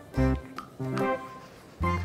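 Instrumental background music: short melodic notes over a bass line that comes and goes.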